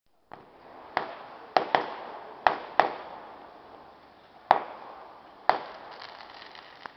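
About seven sharp bangs at irregular intervals, each followed by a short echoing tail; the loudest comes about four and a half seconds in.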